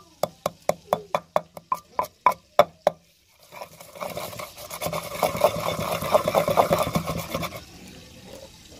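Wooden pestle pounding fresh coriander leaves in a mortar, sharp knocks about three a second. After a brief pause a third of the way in, it switches to fast grinding strokes, a rapid rubbing rattle that dies down near the end.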